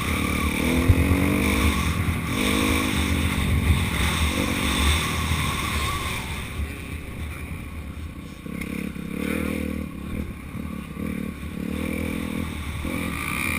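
Motocross bike engine running, its pitch rising and falling as it is revved up and eased off several times.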